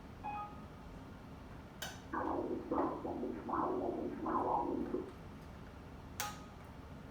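Echocardiography ultrasound machine playing Doppler blood-flow audio: four rhythmic whooshing pulses, one per heartbeat. A short electronic beep comes near the start, and a click or beep from the machine's controls about two seconds in and again about six seconds in.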